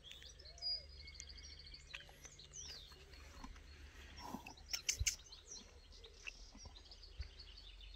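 Birds chirping and singing in the background, with a steady low rumble, and a quick cluster of sharp clicks or knocks about five seconds in.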